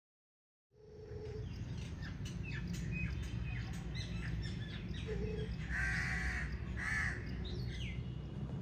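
Outdoor birds chirping over a steady low rumble, starting after a moment of silence, with two louder harsh calls about six and seven seconds in.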